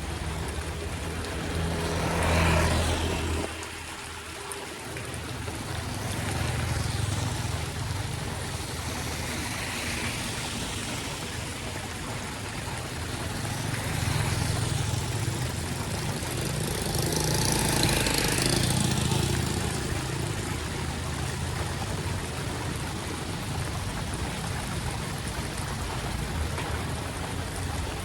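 Steady rush of rain and running floodwater on a flooded street, with a low rumble underneath. It swells louder a few times, most strongly about two seconds in and for several seconds past the middle.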